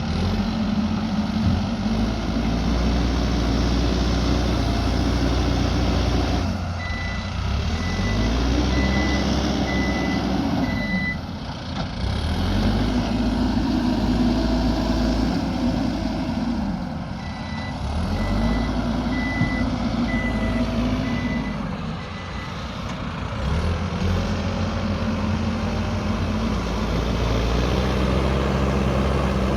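Mahindra backhoe loader's diesel engine running and revving up and down as it works dirt, with its reversing alarm beeping in two stretches, about a quarter of the way in and again past the middle.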